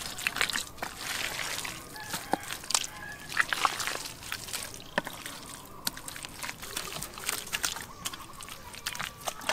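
Wet sloshing and splashing in muddy shallow water, with many irregular small slaps and drips, as hands work through the mud.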